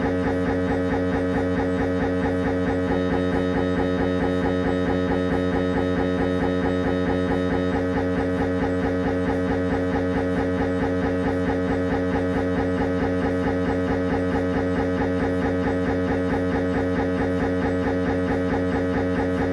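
Siemens Magnetom Avanto 1.5-tesla MRI scanner running a head-scan sequence: its gradient coils buzz in a fast, even, unbroken rhythm of pitched pulses.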